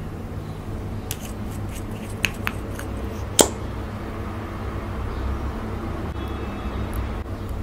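A few short, sharp clicks and taps as makeup items and a pointed tool are handled on a tabletop, the loudest about three and a half seconds in, over a steady low hum.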